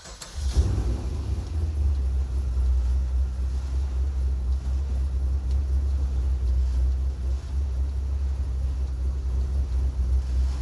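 Holden VZ SS ute's V8 idling with a steady low rumble.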